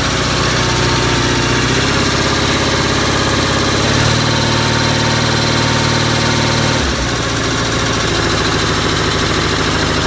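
Onan CCKA twin-cylinder air-cooled engine on a Gravely 450 tractor running steadily after a rebuild. Its note rises about four seconds in and drops back about seven seconds in.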